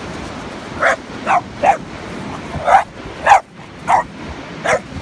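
Boxer dog barking in play, about seven short barks at uneven intervals.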